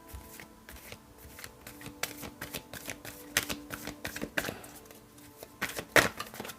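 Soft background music with held tones, under a run of irregular sharp clicks and taps, a few of them louder.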